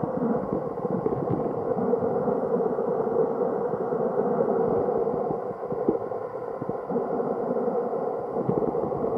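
Muffled underwater rush of a flowing river, heard from below the surface, with a dense crackle running through it; it eases briefly a little past halfway.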